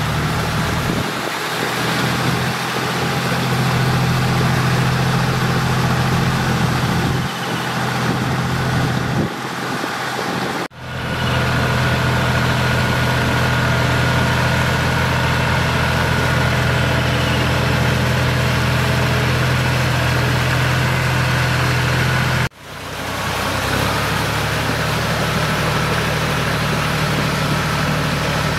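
John Deere 5045D tractor's three-cylinder diesel engine running steadily under load, pulling a rotavator through deep wet paddy mud. The sound drops out briefly twice.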